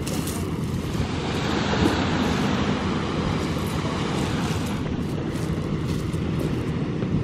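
Wind rumbling on the microphone, a steady low noise.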